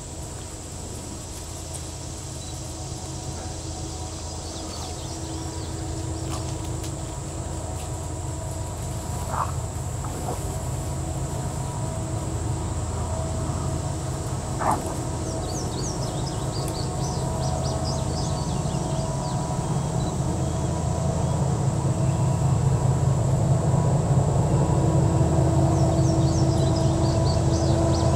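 Diesel locomotives of an approaching freight train, a GE ES44AH and an EMD SD70ACe, heard before they come into sight: a low engine drone with a steady whine above it that grows steadily louder. A high insect buzz carries on throughout, and birds chirp briefly now and then.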